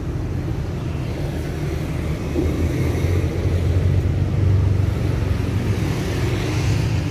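Road traffic: a steady low engine rumble that swells in the middle as a vehicle passes.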